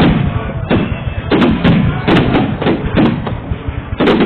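Fireworks going off in a rapid string of booms, about two or three a second, each trailing off briefly.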